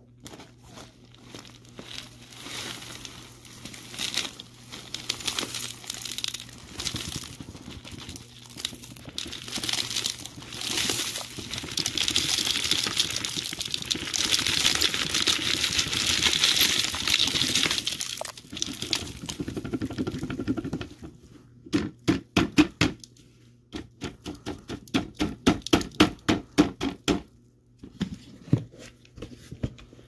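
Dry, crunchy dirt and debris crackling and crunching, denser and hissier in the middle. Near the end it turns into a run of regular crunches, about three a second.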